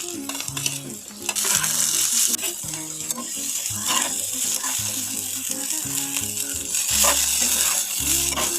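Food sizzling in oil in a pan while being stirred, with the scrape and clatter of the spoon. A background music track with a repeating bass line runs underneath.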